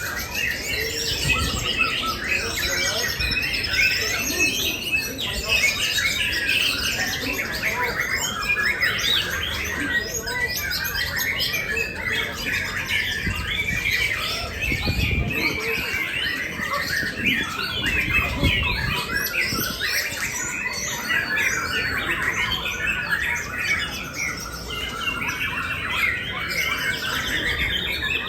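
Several caged songbirds singing at once: a dense, continuous chorus of overlapping chirps, trills and whistled phrases.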